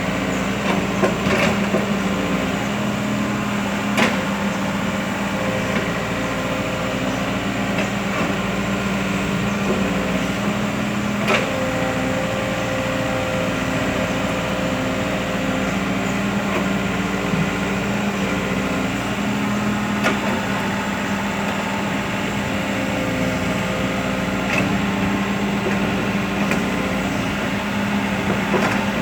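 Kobelco Yutani hydraulic excavator's diesel engine running steadily while it digs soil, with a few sharp knocks spread through it.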